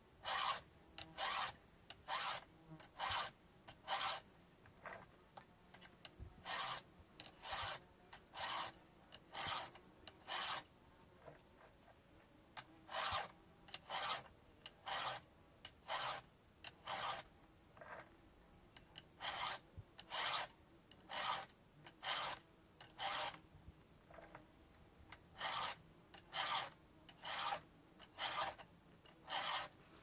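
A hand file rasping across a chainsaw chain's cutting teeth, sharpening the chain: even strokes about one a second, in sets of about five with short pauses between sets.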